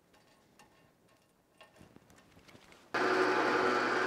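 A few faint metallic clicks, then, about three seconds in, a drill press starts abruptly and runs steadily as its twist bit bores into 3/8-inch steel plate.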